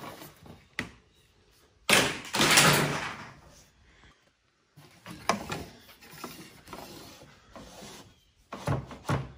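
Knocks and clatter of PVC pipe being handled and set down on a miter saw and workbench. The loudest is a clatter about two seconds in that lasts over a second.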